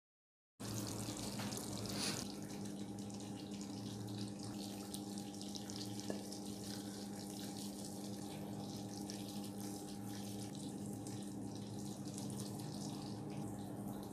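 A steady rushing hiss with a low electrical hum under it, starting about half a second in, with a brief louder rush about two seconds in and a single click about six seconds in.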